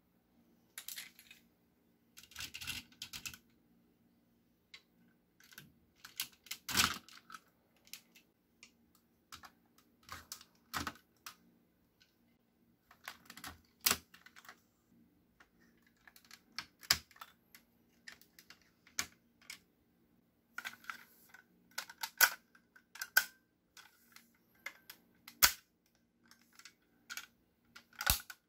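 Plastic parts of a DX Engine-Oh transforming robot toy clicking and snapping as they are detached and folded by hand: irregular sharp clicks with short pauses between, a few louder snaps among them.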